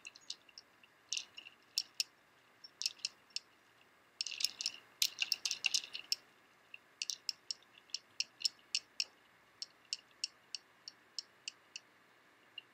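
Light, sharp clicks over a quiet background. They are scattered at first, crowd together about four to six seconds in, then come fairly evenly, two or three a second, before thinning out near the end.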